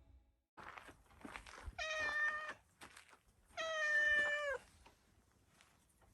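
Domestic cat meowing twice, the second meow longer and dropping in pitch at its end.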